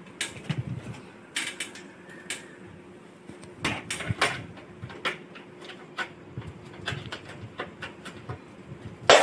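Plastic front panel of a split air conditioner's indoor unit being handled, giving scattered light clicks and knocks of plastic, with a louder short rustling burst at the very end.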